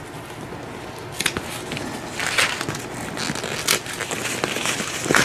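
Plastic packing wrap crinkling and rustling as it is cut and pulled away with scissors, with a few sharp snips.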